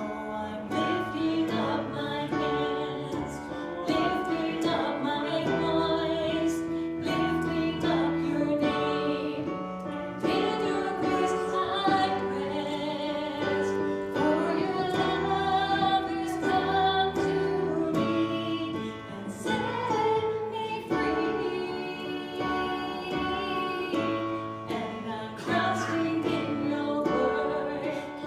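Church worship music: a woman singing over instrumental accompaniment, with sustained chords.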